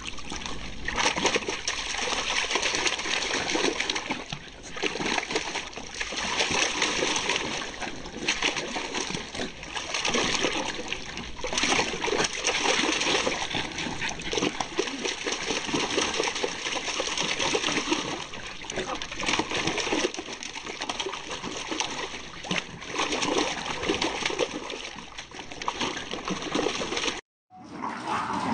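Water splashing and sloshing in plastic tubs as Jack Russell terrier puppies paddle and thrash about in them, in uneven surges; the sound cuts off abruptly near the end.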